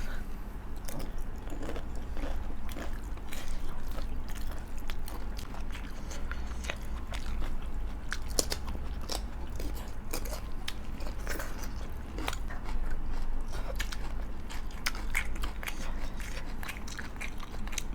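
Close-up chewing and biting of food, with irregular crisp crunches and crackles, over a steady low hum.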